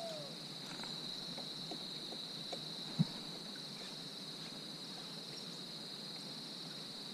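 A steady, high-pitched insect chorus, crickets or similar, buzzing without a break. A single sharp knock sounds about three seconds in.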